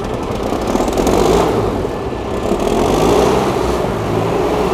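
Engine of a wheeled armored military vehicle running, smoking heavily from the engine deck; it swells louder about a second in and again around three seconds.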